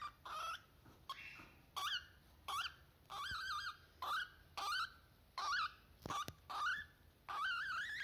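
Lutino cockatiel giving a run of short chirping calls, each with a wavering pitch, about one to two a second. Near the end comes a longer, rising warble, and a couple of sharp clicks fall in between.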